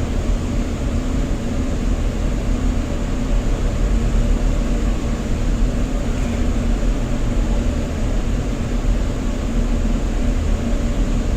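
Steady rumbling noise with a constant low hum: the background noise aboard a cruise ship, with no separate knocks or gulps standing out.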